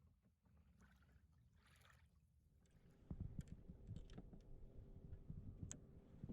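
Faint water sounds around a kayak, with a few soft splashes. From about three seconds in there is a run of low, irregular bumping and rumble.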